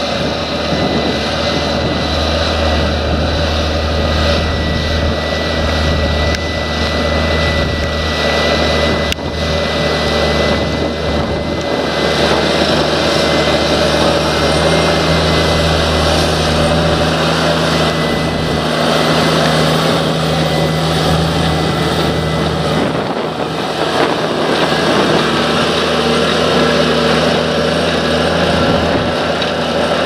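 Fendt 936 Vario tractor's six-cylinder diesel engine running steadily under load while pulling a nine-furrow plough through soil. A steady high whine rides over the engine drone and fades out about two-thirds of the way through.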